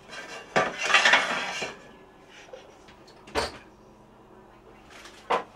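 Kitchenware clattering on a sink counter as things are moved about: a burst of rattling about half a second in that lasts about a second, then two sharp knocks.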